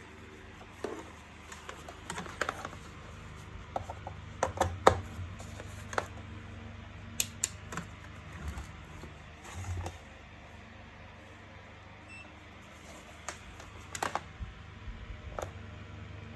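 Irregular clicks and knocks of plastic parts and tools being handled, a cluster of sharper ones about five seconds in and another near the end, over a steady low hum.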